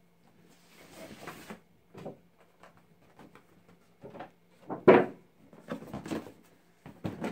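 Cardboard packaging being handled: a rustling scrape as the inner box slides out of its printed outer sleeve, scattered knocks, and one loud thud about five seconds in.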